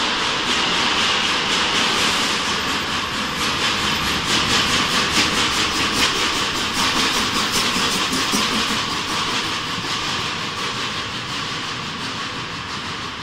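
Steam locomotive hauling a train past: steam hissing with a rhythmic clatter, loudest about four to six seconds in as the engine goes by, then the coaches' wheels clicking over the rail joints, fading toward the end.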